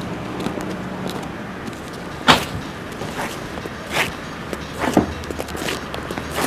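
A car in motion heard from inside the cabin: a steady road-noise hum with a few sharp knocks or clatters, the loudest about two seconds in.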